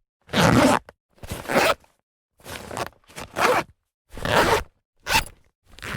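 A fabric bag being handled: about seven short fabric movements, each under half a second, with silence between them.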